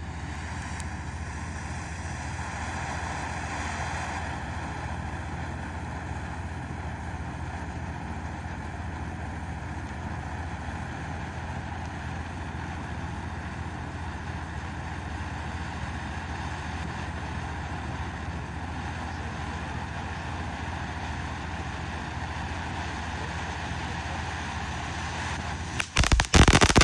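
Black Cat Medusa fountain firework spraying sparks with a steady hiss over a low steady hum. About a second before the end, loud crackling pops break out.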